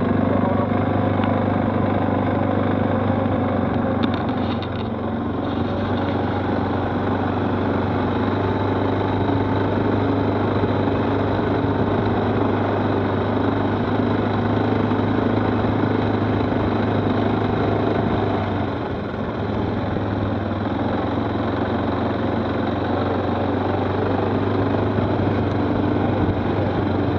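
Stels 800D quad bike engine running steadily while riding, dipping briefly in level twice.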